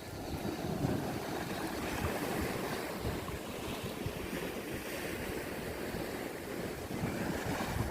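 Sea waves washing, with wind buffeting the microphone.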